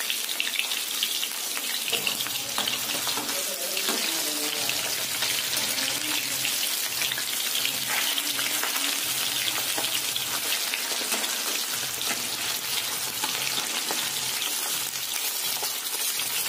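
Masala-coated fish steaks deep-frying in hot oil in a steel kadai: a steady sizzle with many small crackling pops.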